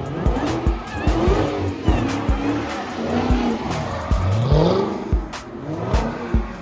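Rap music with a heavy bass beat over cars drifting: engines revving up and down with tyres squealing.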